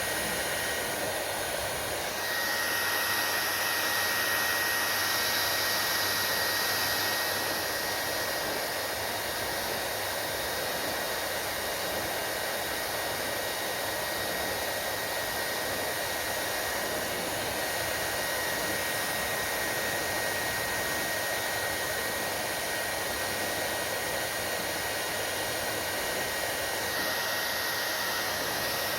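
Hair dryer running steadily: a continuous rush of air with a thin high whine that sets in about two seconds in, the tone of the airflow shifting slightly again near the end.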